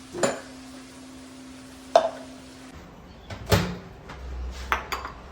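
Kitchen handling sounds: about four sharp knocks and clinks of pots, dishes or utensils being moved, with a steady low hum behind the first half that cuts off partway through.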